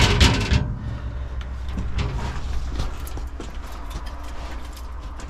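A loud clattering knock on the locomotive cab's rusted metal, then scattered light clicks and knocks over a low steady rumble, as someone moves about inside the cab.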